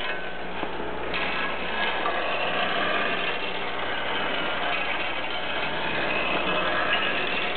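Hex head bolt stepper feeder running: a steady mechanical clatter and rattle of the feeder's moving parts and the bolts, growing brighter about a second in.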